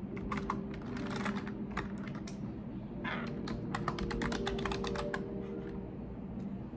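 Typing on a computer keyboard: two quick runs of key clicks with a short pause between, stopping about five seconds in, over a steady low hum.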